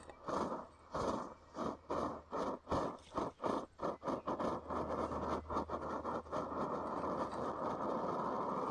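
Liquid-fuel camping stove burner sputtering in pulses that speed up from about two to about four a second and then merge, about five seconds in, into a steady burn. The burner is still warming up and not yet burning cleanly, which the owner puts down to too little priming.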